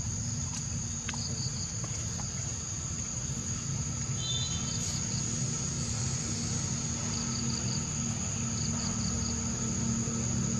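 Insects chirping: a steady high drone with short trills of chirps that come back every second or two, over a constant low rumble.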